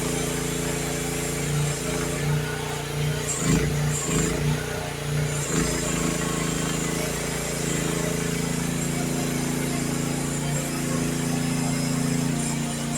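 Youtop YT15 mini excavator's engine running steadily, with a cluster of clunks and knocks from about three to six seconds in.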